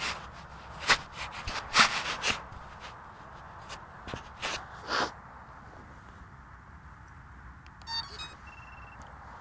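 Knocks and rustles as the quadcopter and its onboard camera are handled and set down on grass. About eight seconds in, the flight battery is connected with a click. The flight controller and ESCs then give a quick run of short startup beeps and one steady beep.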